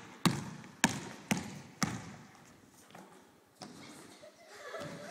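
A basketball is dribbled on a wooden gym floor. There are four bounces about half a second apart in the first two seconds, each ringing in the hall, and then the bouncing stops.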